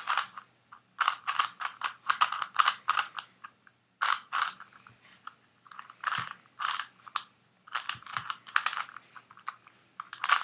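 Rubik's Cube being twisted by hand: quick runs of clicking, rattling layer turns in uneven bursts with short pauses between them.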